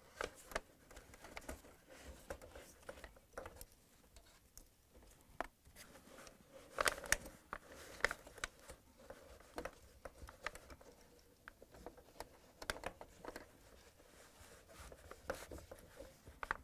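Faint rustling and scraping with scattered light clicks, as a fibrous insulation pad and the wire harnesses are handled and pressed into place inside a dishwasher door.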